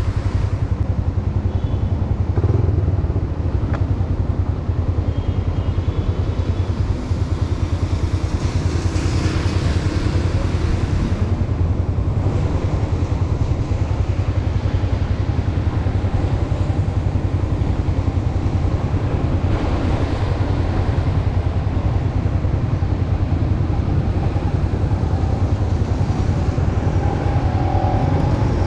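Motorcycle engine running steadily under way, with a fast even pulse, mixed with road noise. Brief swells of hiss come about a third of the way in and again past the middle.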